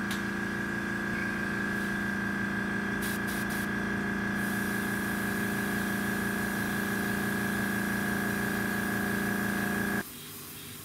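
Airbrush air compressor running with a steady hum, cutting off suddenly about ten seconds in and leaving a soft hiss of air.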